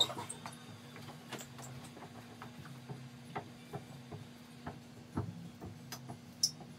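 Squeegee working a wet static cling film against window glass: scattered light clicks and taps at irregular intervals, over a faint steady low hum.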